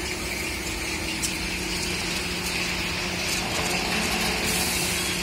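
Steady hum of a running powered roller conveyor line and factory machinery, with a faint click about a second in.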